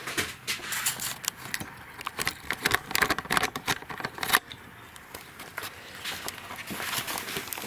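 Handling noise from a camera being lifted and moved by hand: a quick, irregular run of clicks, knocks and rustles that stops abruptly about four and a half seconds in, followed by a few scattered clicks.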